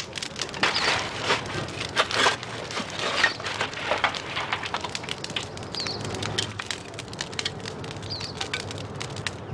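Hatchet and axe blows splitting wood into thin kindling sticks: irregular sharp cracks and splintering, thickest in the first few seconds and sparser later on.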